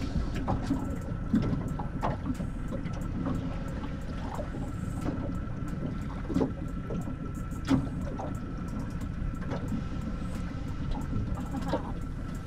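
Small aluminium boat sitting on calm water: a steady low rumble with scattered light knocks and slaps against the hull, and a faint steady high whine throughout.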